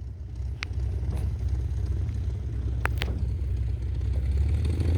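A low, steady rumble that grows gradually louder, with a few faint clicks.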